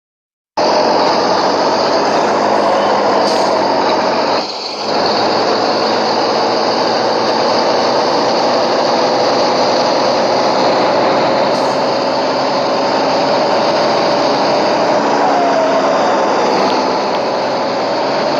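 A motor running loudly and steadily, a tone in it rising slowly; the sound cuts in about half a second in and dips briefly about four seconds later.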